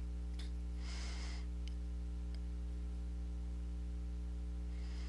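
Steady low hum with no speech, with two faint brief hisses, one about a second in and one near the end, and a few faint ticks.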